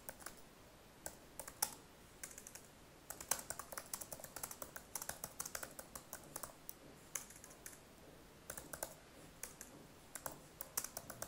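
Typing on a computer keyboard: faint, irregular keystroke clicks, a few scattered ones at first, then quick runs of keys from about three seconds in, a short pause, and a last flurry near the end.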